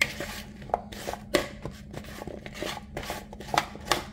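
A spatula and slotted turner scraping and knocking against a plastic mixing bowl as seasoned potato chunks are tossed: irregular clicks and scrapes.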